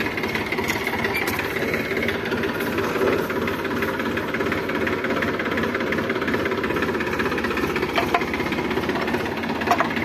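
Massey Ferguson 7250 tractor's three-cylinder diesel engine running steadily, with a couple of short sharp clicks near the end.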